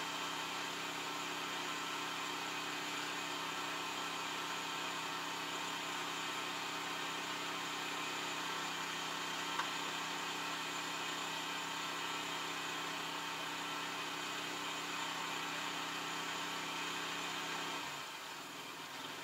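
Yanmar YT333 tractor's diesel engine idling steadily, heard from inside its closed cab. Near the end the engine note drops away, leaving a steady hiss.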